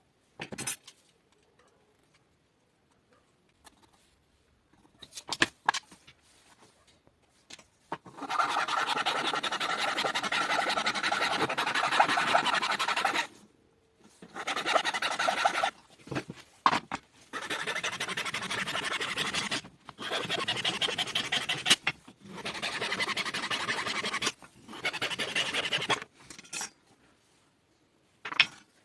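Rough abrasive scraping, like a workpiece being filed or sanded, in several long strokes of two to five seconds each from about a third of the way in, with a few short knocks before them.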